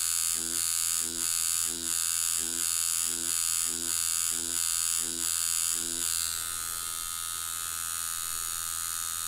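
Deki Irons Sensei rotary tattoo machine buzzing as a magnum needle whip-shades practice skin, in regular strokes about one and a half a second. The strokes stop about six seconds in and the machine runs on more quietly.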